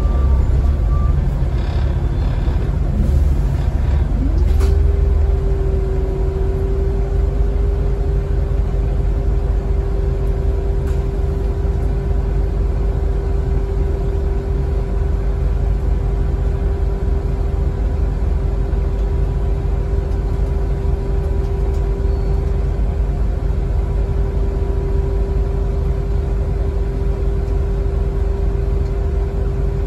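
Volvo B7TL double-decker bus's six-cylinder diesel engine and drivetrain running while the bus is under way, heard from inside the passenger saloon. A steady low rumble, with a humming tone that rises about four seconds in and then holds one steady pitch.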